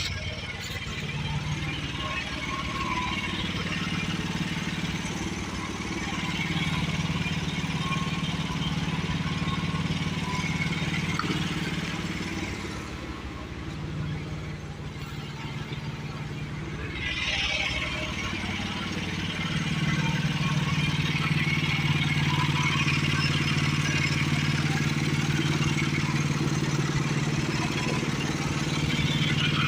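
The small gas engine of a portable bandsaw mill runs steadily with a hiss above it, both swelling and easing in strength. The hiss drops away for a few seconds about halfway through.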